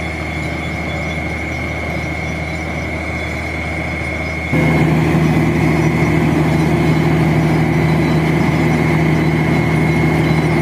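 Steady drone of the engines of a truck-mounted borewell drilling rig running, with a thin high whine over a low hum. About four and a half seconds in it abruptly gets louder, with a stronger, deeper hum.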